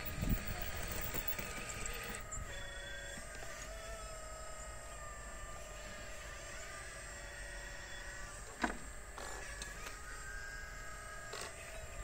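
Radio-controlled scale model Liebherr 946 crawler excavator working, its drive giving a steady whine that shifts a little in pitch as the boom and arm move. One sharp click comes about two-thirds of the way through.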